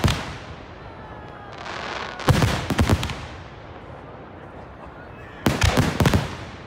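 Aerial fireworks shells bursting close by: a bang at the start, a cluster of rapid bangs about two and a half seconds in, and another cluster near the end. A rising hiss leads into the middle cluster.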